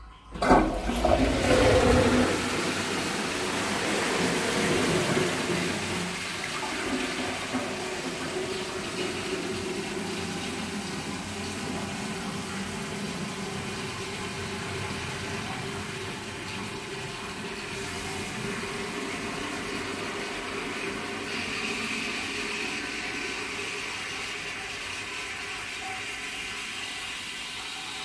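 A ceramic pedestal toilet flushing: a sudden rush of water about half a second in, loudest for the first two seconds, then a long steady hiss of running water as the cistern refills, slowly fading, with a higher hiss joining about three-quarters of the way through.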